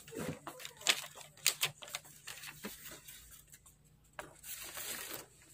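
Scattered light clicks and rustles of handling noise, with a denser rustling stretch about four seconds in, over a faint steady low hum.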